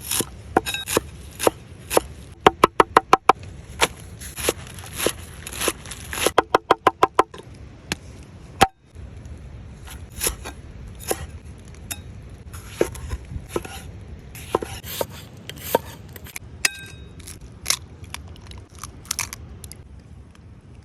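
Kitchen knife chopping on a cutting board: scattered single chops, with two quick runs of rapid chopping, about eight strokes a second, a few seconds in and again around the middle.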